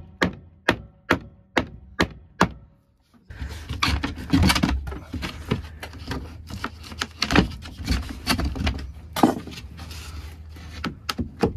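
Hammering on wood, about two sharp blows a second, which stops shortly after two seconds in. After a brief gap, irregular knocks and clatters follow over a steady low hum.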